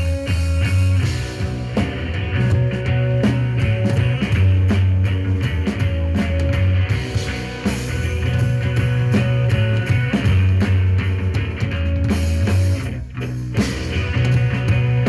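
Rock band playing live: electric guitar, bass guitar and drum kit, loud and dense, with a heavy bass line. The sound dips briefly about two seconds before the end, then the full band comes back in.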